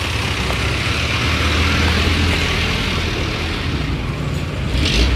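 Motor vehicle engines running close by, a steady low rumble over traffic hiss, growing louder near the end as a vehicle comes alongside.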